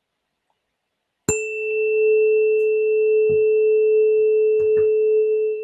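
A 432 Hz tuning fork struck once with a handheld puck about a second in, then ringing with one steady pure tone and a faint high overtone. A few light handling knocks come in under the ring.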